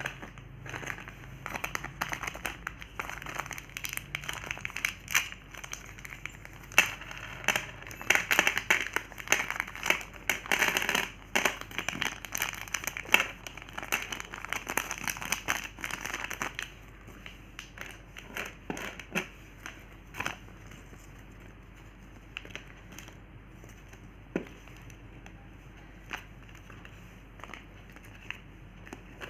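Plastic wrapper of a Gems chocolate packet crinkling as it is unwrapped. The crinkling is dense for about the first sixteen seconds, then thins to occasional crackles.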